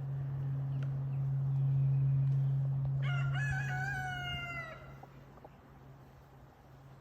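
A rooster crows once about three seconds in, a single call under two seconds long that falls slightly in pitch at the end. A steady low hum runs underneath and fades out soon after the crow.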